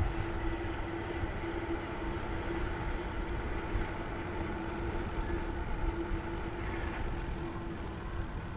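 Noise of a moving bicycle ride: wind rushing over the microphone and a rolling rumble, with a faint steady hum under it.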